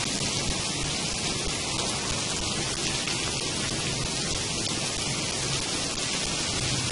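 Heavy rain falling steadily on a wet road and surroundings, a continuous even hiss.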